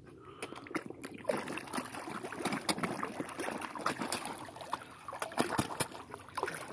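Carp splashing and smacking at the water surface around bare feet as they feed, a quick irregular run of small splashes that picks up about a second in.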